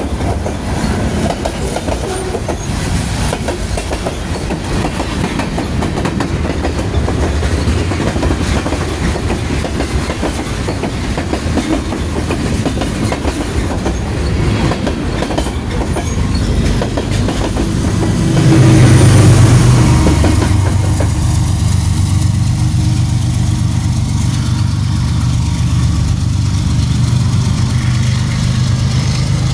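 Freight cars of a CSX mixed train rolling past, their wheels clattering over the rail joints. About two-thirds of the way through, the train's trailing GE ES40DC diesel locomotive passes, which is the loudest part. After it, a steady low diesel engine hum continues as it pulls away.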